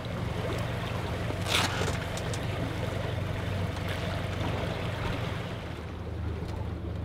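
Outboard motor on a duck boat running steadily under way, a constant low hum, with water and wind noise around it and a brief hiss about one and a half seconds in.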